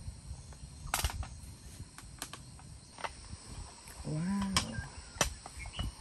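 Several light metallic clicks and knocks from the handles and hinge of an aluminium hot sandwich maker being worked on a camp gas stove. About four seconds in comes a short, low voiced sound.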